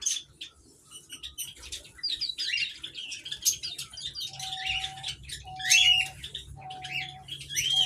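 Small aviary birds chirping in quick, chattering bursts, busier after the first two seconds. From about halfway in, a flat, steady tone repeats about once a second alongside the chirps.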